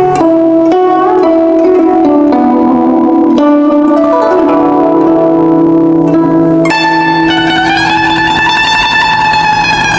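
Instrumental Chinese music: a plucked Chinese zither playing a stepping melody of separate notes, joined about seven seconds in by a long held note that swells slowly in pitch.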